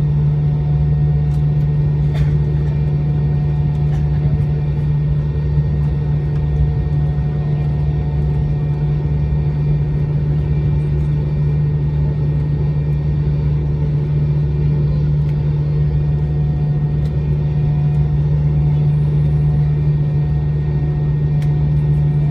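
Cabin noise of an MD-90 taxiing at low power: its rear-mounted IAE V2500 engines make a steady drone, a strong low hum over a rumble, with no change in power.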